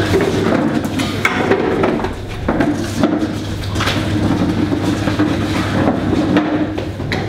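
Metal-framed classroom tables being pushed together and knocked on a hard floor: several sharp knocks and scrapes, over a steady low hum.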